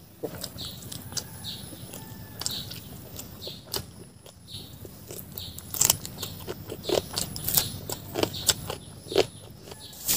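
A person chewing and biting chicken meat and fried rice eaten by hand, miked up close. The sound is irregular mouth clicks and smacks, with a run of louder sharp clicks from about six seconds in.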